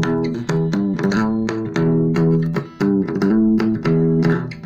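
Electric guitar played through a switched-on MAD BOX Black Master compressor pedal: a run of picked notes, several a second, each ringing on after its attack.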